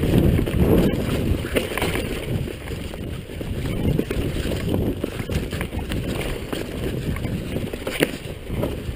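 Downhill mountain bike running fast over a rough dirt trail: a steady rumble of wind and knobby tyres on the ground, with rattling from the bike and a few sharp clacks as it hits bumps.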